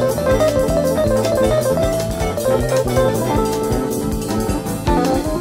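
Jazz-fusion instrumental: a guitar plays a quick run of short notes over bass guitar and drum kit.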